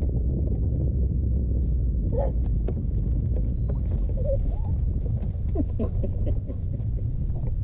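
Dog whining in several short rising-and-falling cries, about two, four and six seconds in, over a steady low rumble of wind and water.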